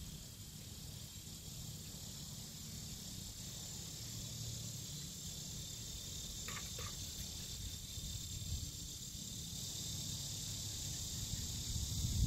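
Steady high insect drone over a low background rumble, with two brief high notes a little past halfway.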